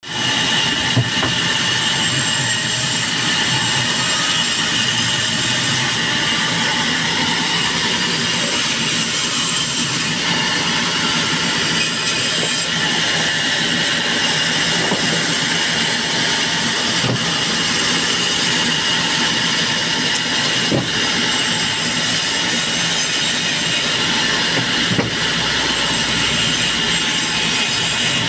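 Vertical band saw running and cutting through raw logs: a loud, steady sawing noise with a constant high whine, broken by a few knocks.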